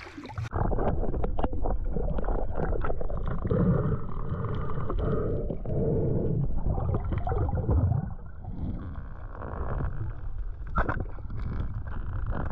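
Muffled underwater sound picked up by a camera in a waterproof housing: a low water rush with gurgling and scattered small clicks and knocks, and one sharp click near the end.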